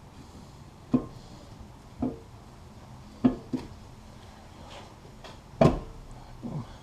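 Six uneven knocks and clunks of metal parts, the loudest about two-thirds of the way through, as a cylinder head is worked down onto the 5.7 Hemi block until it seats.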